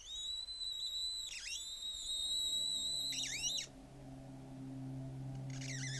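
Eerie horror-film score: a high, thin whining tone of several pitches held together, dipping in pitch twice and cutting off about three and a half seconds in, while a low drone swells in underneath. Near the end a wavering high tone comes back.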